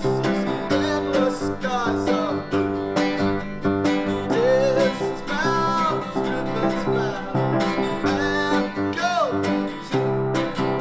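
Acoustic guitar strumming a steady rhythm as accompaniment to a school song, with a gliding melody line over it.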